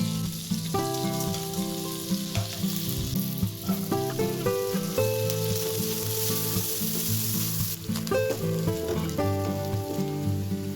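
Food sizzling in hot oil in a cooking pan, a steady hiss that grows louder midway and eases about eight seconds in, with guitar background music underneath.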